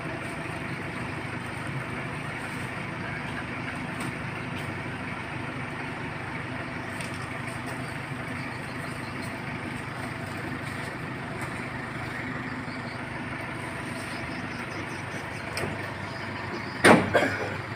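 Truck engine idling steadily. About a second before the end there is one sharp, loud knock.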